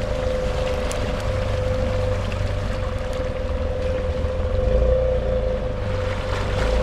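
Honda Rubicon 500 ATV's single-cylinder engine running steadily under load, a constant whine riding over its low rumble, swelling briefly about five seconds in and again near the end.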